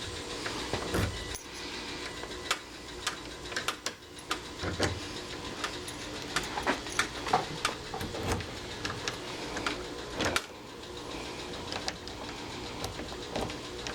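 Irregular small clicks and rattles of a Kwikset Kevo deadbolt and door hardware being worked by hand while the lock is tested, with a pause near the end.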